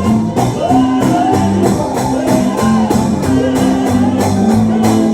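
Live gospel music: a band with guitar over a steady beat, with voices singing a melody.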